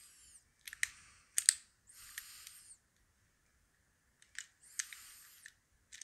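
Small metallic clicks and short scraping rasps from a Master Lock No. 5 laminated steel padlock as a pick pushes its shackle latch aside to bypass it. A brief scrape at the start, two sharp clicks in the first second and a half, a longer scrape about two seconds in, then another click and scrape near the end.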